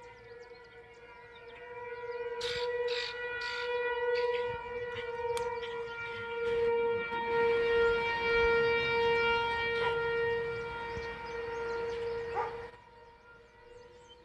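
ASC T-128 tornado siren sounding at full speed: one steady tone at fixed pitch whose loudness swells and fades as the rotating horn sweeps around. It drops sharply in loudness near the end, leaving the tone faint.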